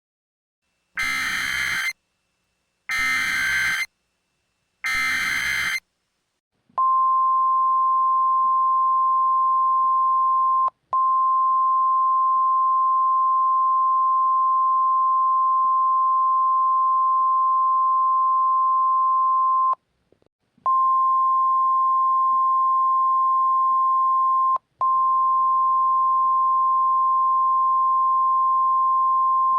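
Simulated emergency alert broadcast: three short bursts of SAME digital header data, each about a second long and about a second apart. These are followed by the NOAA Weather Radio warning alarm, a single steady high-pitched tone held for over twenty seconds and broken three times by brief dropouts.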